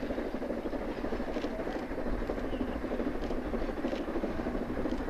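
Narrow-gauge C2 steam locomotive working hard with its train: a steady, unbroken chuffing from its exhaust.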